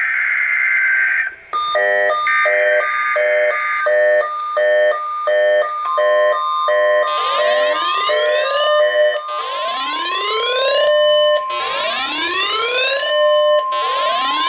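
NOAA Weather Radio test signal: a harsh buzzing data burst (the coded alert header) ends about a second in, then alert beeps repeat in a quick steady pattern. From about six seconds the long steady warning alarm tone sounds, joined by rising siren sweeps about every two seconds, as alert receivers sound.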